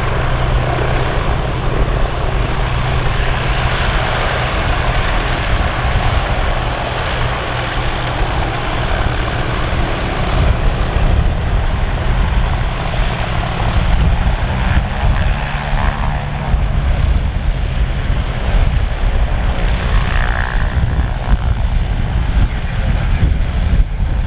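Piper PA-31 Chieftain's twin six-cylinder piston engines running at low power as it taxis, with a steady propeller drone. From about halfway, an uneven low rumble grows stronger under it.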